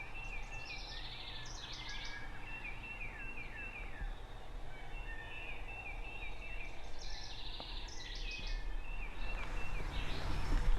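Songbird singing in spring woods: two bouts of a quick, repeated, high chirping song, with a faint low rumble underneath and some rustling near the end.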